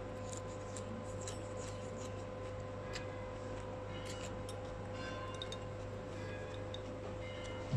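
Close-up eating sounds: chewing a mouthful of shredded vegetable, with small scattered clicks and ticks from the metal fork, over a steady hum.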